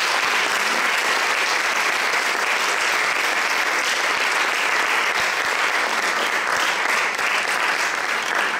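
Audience applauding, a dense, steady clapping that fills the hall, joined by the panellists on stage.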